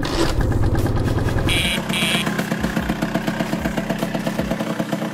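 Motor scooter engine idling with a steady, rapid putter. Two short high beeps sound about a second and a half in.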